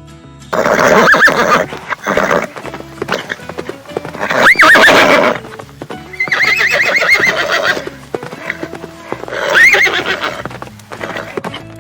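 Horses neighing: four loud whinnies in succession, each with a quavering pitch, over steady background music.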